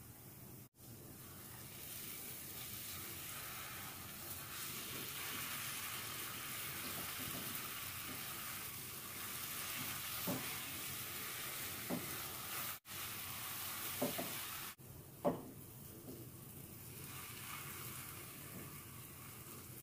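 A dry-fruit and nut mixture sizzling in ghee in a nonstick pan, stirred and pressed with a spatula. There are a few scrapes and knocks of the spatula against the pan, the loudest about fifteen seconds in.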